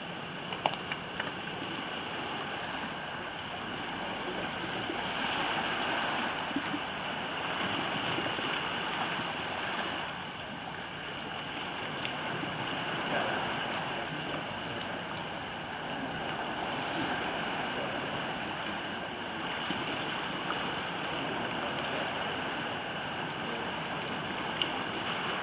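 Sea waves washing against a rocky shoreline: a steady rush of water that swells and eases every few seconds. A few small clicks come about a second in.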